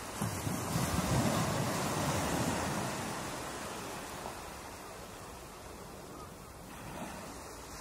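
Ocean surf breaking and washing: a noisy rush that swells about a second in and then slowly dies away.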